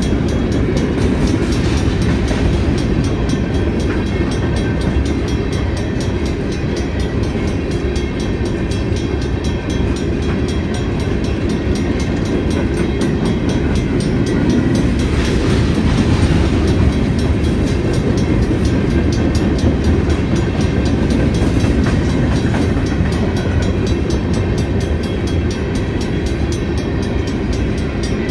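A freight train's cars rolling steadily past, with the loud, continuous noise of steel wheels on the rails.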